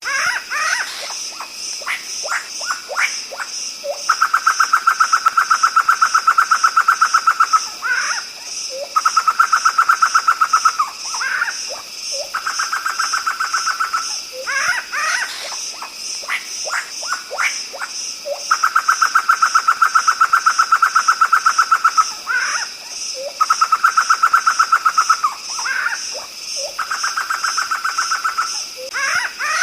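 Black laughingthrush (poksay hitam) singing: long, rapid, even trills at one pitch, each lasting two to four seconds, alternating with quick rising calls. A steady pulsing high buzz runs underneath, and the whole sequence repeats about every fourteen seconds, like a looped recording.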